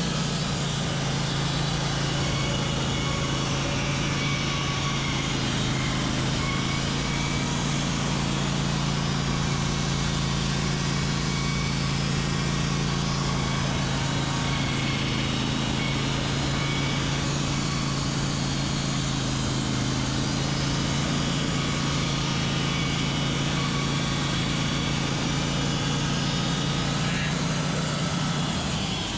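Wood-Mizer LT15 Wide portable bandsaw mill running under load as its carbide band blade cuts an inch-thick board from a white pine log. It is a loud, steady hum with a strong low tone and a hiss from the cut.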